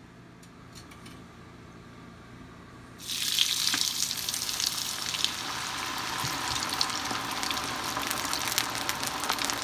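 Basket of cut potato fries lowered into hot deep-frying oil: a few light clicks, then about three seconds in the oil bursts into a sudden loud sizzle that settles into a steady crackling fry.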